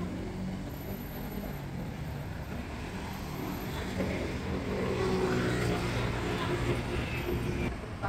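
Vehicle noise: a steady low engine hum that grows louder from about four seconds in.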